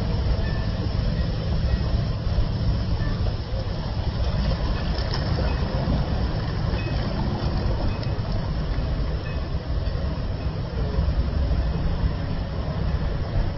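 Ocean surf: waves breaking offshore and foamy water washing through the shallows, heard as a steady low rumbling wash.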